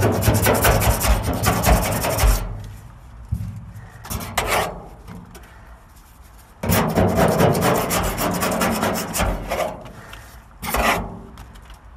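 Hand scraper rasping old glued-on sound-deadening residue off the inside of a Caprice's sheet-steel roof, in fast back-and-forth strokes. The scraping stops about two and a half seconds in, comes back briefly, then starts again for another few seconds near the middle. A short last burst comes near the end.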